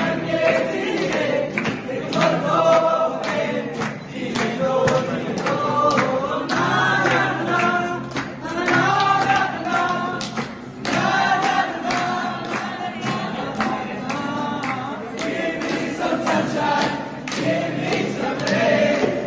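A group of young people singing a song together in chorus, accompanied by strummed acoustic guitars.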